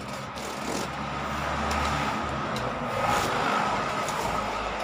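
Highway traffic: a vehicle passing with a low rumble, its sound swelling to a peak about three seconds in and then easing.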